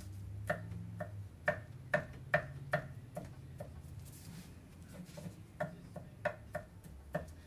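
Kitchen knife chopping on a wooden cutting board: a run of sharp, uneven knocks, about a dozen in all, with a pause of a second or two midway.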